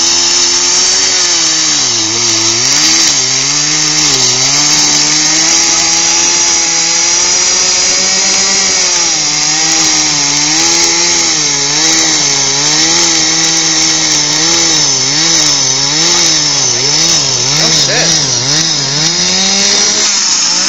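Gas-powered ice auger engine running with the choke off, its speed wavering; a little more than halfway through it is revved up and down in quick, repeated throttle blips.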